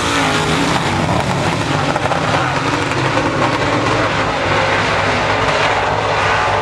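Semi late model race cars' engines running together as a field of cars circles the track, a dense, steady engine noise.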